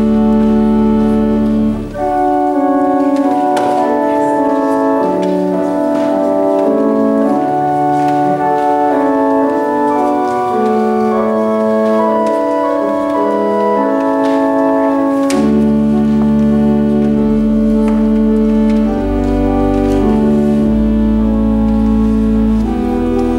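Church organ playing slow offertory music while the offering is gathered: held chords that change every second or so under a melody. Deep bass notes come in about two-thirds of the way through.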